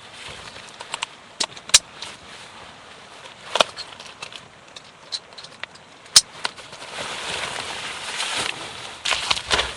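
Footsteps and gear noise on a rocky mountain trail: irregular sharp clicks and knocks, with a rougher scraping stretch in the last few seconds.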